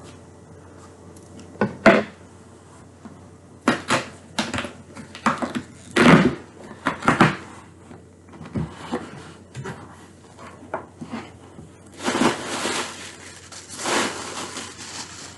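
A cardboard shipping box being unpacked by hand: a string of knocks, thumps and crinkles as packaging and items are handled, with longer spells of rustling about twelve and fourteen seconds in.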